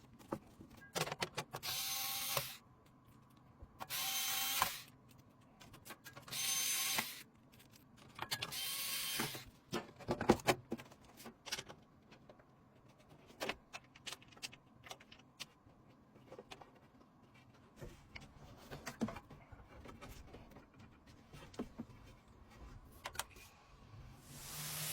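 Four short whirs of a small electric screwdriver, each under a second and about two seconds apart, as screws are driven in. After them come scattered clicks and taps of hardware being handled.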